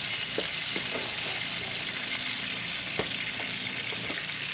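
Steady sizzling hiss with a few light crackles and ticks from the open Big Green Egg ceramic kamado grill, where a whole chicken is smoking over the charcoal.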